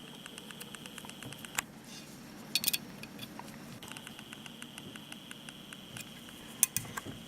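Small metal clicks and taps of a screwdriver and revolver parts being handled during reassembly, with a few sharper clicks about one and a half seconds in, a quick cluster past two and a half seconds, and more near the end, over a faint high whine that comes and goes.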